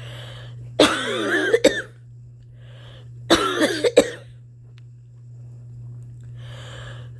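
A woman's harsh coughing in two short bouts, about a second in and again at about three seconds, each a quick run of coughs, with noisy breaths drawn before and between them. It is a persistent cough that she puts down to allergies but fears may be more, such as asthma.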